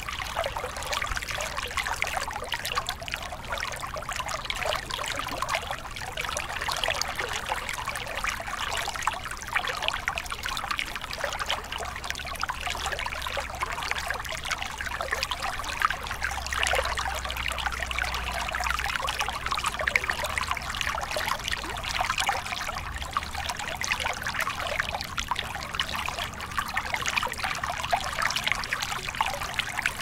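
Shallow, rocky stream running over stones: a steady, even splashing and trickling of water.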